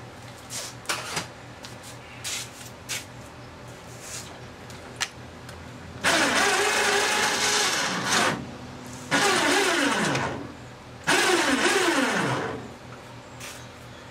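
A motor-driven shop tool run in three bursts, the first about two seconds long and the next two shorter, with the pitch falling as it winds down after each one. A few light knocks of handling come before it.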